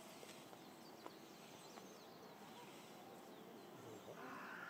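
Near silence: faint outdoor ambience with a few faint, high, short chirps.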